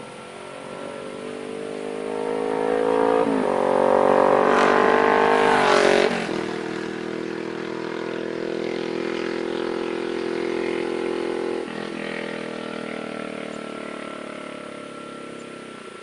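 Kawasaki Vulcan S 650 parallel-twin with a Danmoto Highwayman aftermarket exhaust, accelerating past: the engine note climbs and grows louder as it approaches, with a brief dip about three seconds in. It drops in pitch as the bike goes by about six seconds in, then runs on steadily and fades into the distance.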